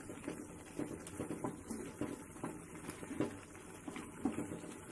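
A thick moong dal and spinach stew bubbling at a boil in a steel kadai, stirred with a wooden spatula: a scatter of small, irregular pops and plops. The dish is fully cooked at this point.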